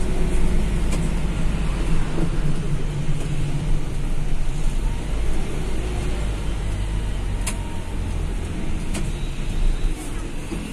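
Bus running on the road: a steady engine and road rumble, with a few sharp clicks.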